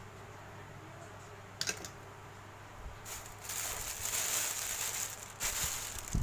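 Thin plastic bag rustling and crinkling as it is handled, for about three seconds from about three seconds in. A short click comes earlier, and a dull thump near the end.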